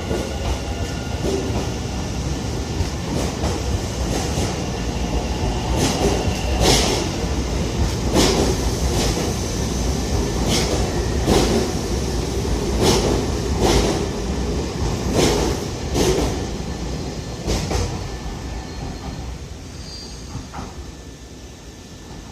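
Semboku Rapid Railway 7020 series electric train pulling out of a station: the traction motor whine rises in pitch at the start, then the wheels clack sharply and irregularly over rail joints and points as the cars pass. The sound fades away near the end as the train leaves.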